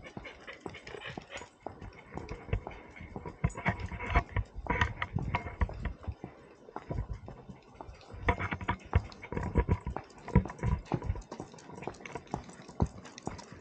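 Small dog making sounds close by, amid irregular clicks and scuffs, busiest in two stretches about four and nine seconds in.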